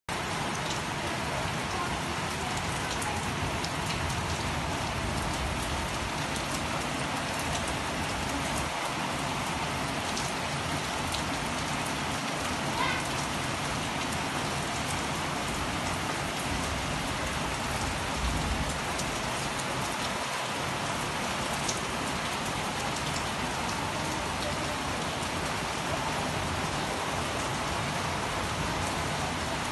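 Steady heavy rain falling, an even hiss with a few scattered drip ticks.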